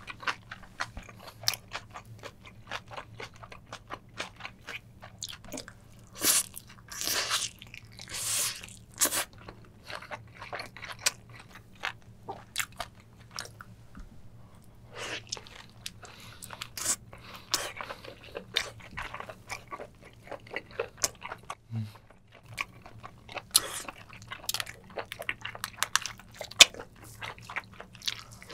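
Close-miked eating of spicy braised octopus, chicken legs and kimchi: biting and chewing, with many short wet clicks and crunches.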